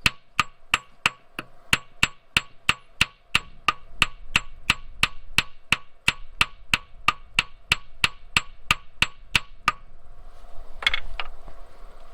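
Hand hammer tapping steadily on metal, about three ringing blows a second, around a bolt welded to a washer on an engine water jacket. The tapping stops just before ten seconds in, then comes a louder double blow about a second later.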